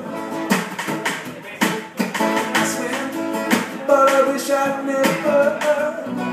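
Live acoustic music: a strummed acoustic guitar with a snare drum beating time, and a man singing over it, holding a wavering note in the middle.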